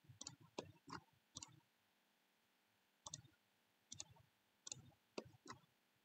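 Faint computer mouse clicks: about ten short, sharp clicks at an irregular pace, with a pause of about a second and a half near the middle.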